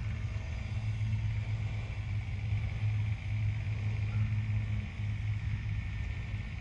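Golf cart motor running as the cart drives slowly over grass: a steady low hum that dips briefly now and then, with a fainter high whine.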